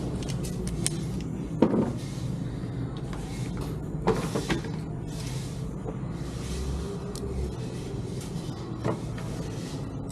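Hand tools being handled and set down, giving a few sharp knocks and clinks over a steady low hum.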